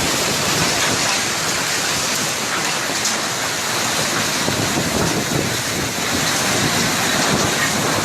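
Hailstorm: hail and heavy rain pelting down in a dense, steady clatter of countless small impacts.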